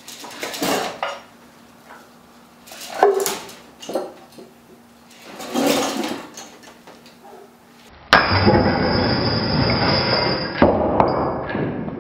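Rope creaking through a pulley, with clinks from the chain and weight plates as they are hoisted against a glued wood-block joint. About eight seconds in, the glue joint gives way: a sudden loud crash as the weight plates and chain drop to the concrete floor, followed by a few seconds of clatter.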